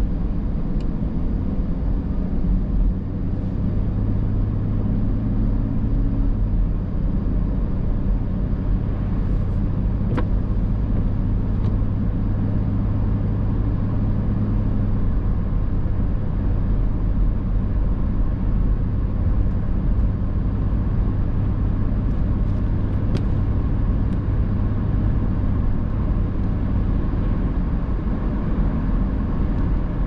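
Steady road noise of a car driving, heard from inside the cabin: a low engine and drivetrain drone with tyre noise on wet pavement.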